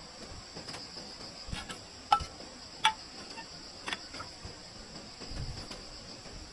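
Steady high-pitched chirring of insects, with several sharp knocks over it, the loudest about two and three seconds in.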